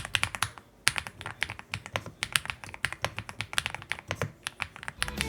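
Typing on an Ajazz MK87 mechanical keyboard with a five-layer sound-dampened build: a fast, irregular run of key clicks with a brief pause about half a second in. Music comes in near the end.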